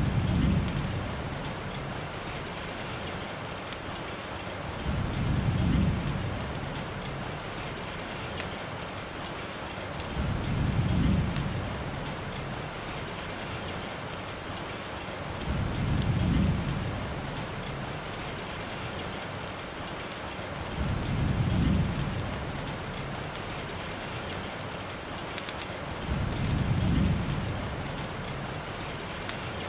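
Steady rain, with a low rumble that swells and fades six times at even intervals of about five and a half seconds.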